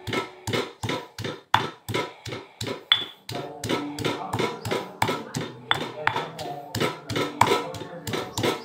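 Stone pestle pounding fresh turmeric, garlic and ginger in a heavy stone mortar: a quick, even run of knocks, three to four a second, as the spices are crushed coarsely rather than to a paste.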